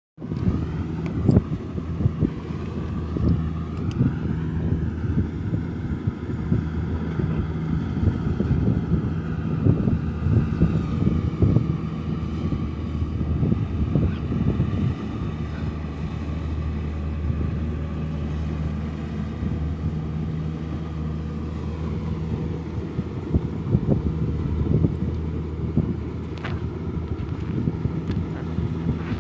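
Kubota rice combine harvester's diesel engine running steadily at working speed, with irregular knocks and rattles from the machine.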